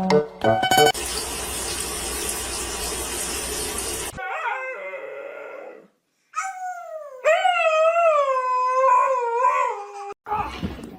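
A dog howling: a short, fainter wavering howl, then one long howl of about four seconds that wavers up and down and slides lower in pitch. Before the howls there are about three seconds of steady hiss.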